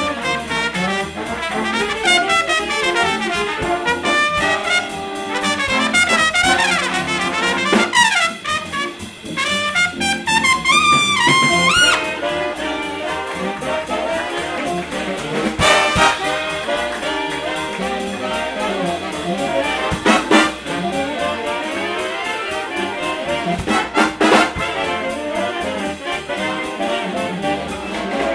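Live big band jazz: a trumpet solo of quick runs over the band's brass and saxophones, with a phrase that climbs steeply in pitch about ten seconds in.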